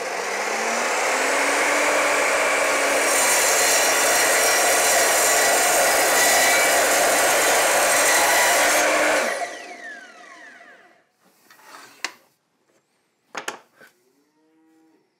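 Evolution R255SMS mitre saw spinning up with a rising whine, then its blade cutting through a piece of ash hardwood for about six seconds. The motor then cuts off and winds down with a falling whine, followed by a few light knocks as the cut piece is handled.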